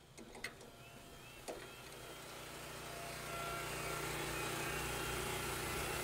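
The small gasoline engine on a Woodland Mills portable bandsaw mill running steadily; it gets louder over the first three seconds, then holds level. A couple of light clicks come in the first two seconds.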